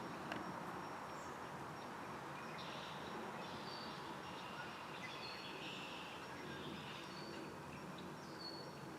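Small birds chirping, short high notes and trills coming every second or so, over a steady background of outdoor noise.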